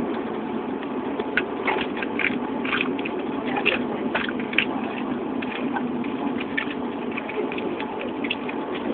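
Steady road and engine noise inside a moving car's cabin, with scattered short clicks over it.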